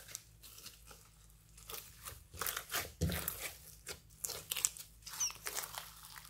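Hands squeezing and stretching floam slime packed with foam beads and glitter, giving irregular crunchy crackles and small pops, with a soft low thump about three seconds in.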